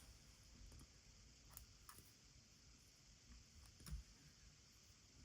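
Near silence with a few faint, sharp clicks of fly-tying tools being handled at the vise, the last and loudest about four seconds in.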